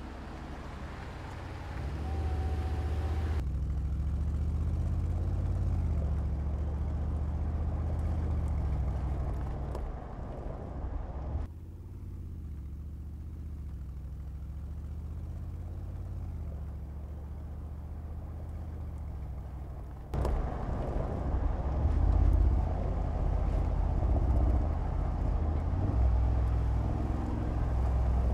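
2019 Mercedes-Benz G-Class engine running as the SUV accelerates and slows, its pitch rising and falling through the gears. The sound changes abruptly a few times between passes and is louder and rougher from about two-thirds of the way in.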